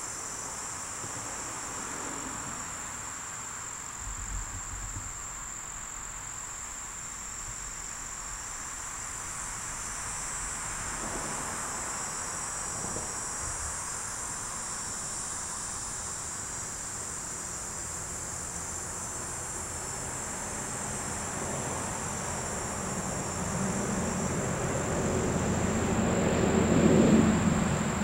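A steady, high-pitched trill of insects chirring in the background. A low droning hum swells over the last few seconds, peaks just before the end, then fades.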